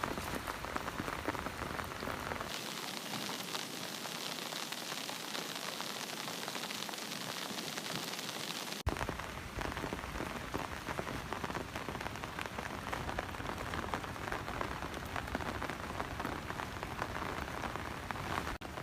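Steady rain falling and pattering on surfaces. The sound changes suddenly about two and a half seconds in, losing its low rumble and turning brighter, then changes back about nine seconds in.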